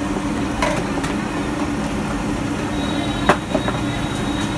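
Steady roadside traffic rumble, with a few sharp clinks of a metal ladle against a steel cooking pan as noodles are stirred.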